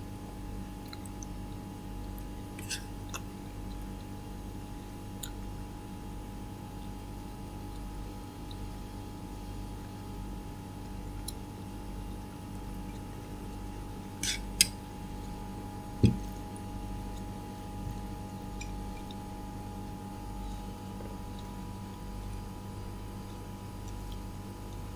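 Steady low hum with a few faint ticks. Two sharp clicks come about two-thirds of the way through, followed a moment later by a single low thump.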